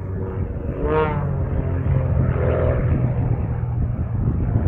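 Propeller-driven aircraft engine running steadily in a low hum, with a brief pitched sound rising and falling about a second in.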